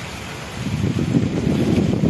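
Wind buffeting the microphone in irregular gusts, over the low rumble of a passenger train running away along the track.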